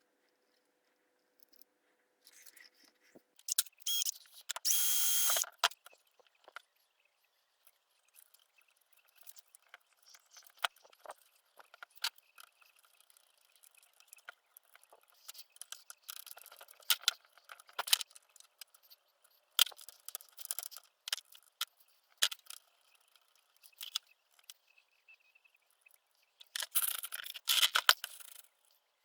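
Small hard parts and hand tools being handled: scattered clicks, taps and rattles, with a louder scraping burst lasting a second or so about four seconds in and another near the end.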